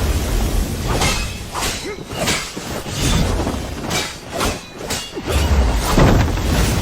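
Fight-scene sound effects: a quick run of punch impacts and swishes, about two hits a second, with deep heavy thuds near the start, about halfway and near the end.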